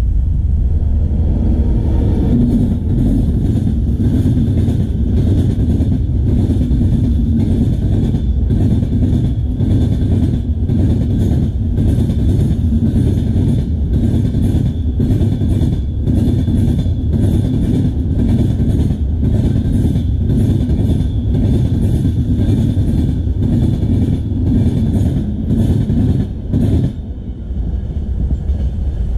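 Passenger train's coaches passing close by at speed: a heavy rumble with a regular clatter of wheels clicking over the rail joints. The clatter stops about 27 s in as the last coach goes by.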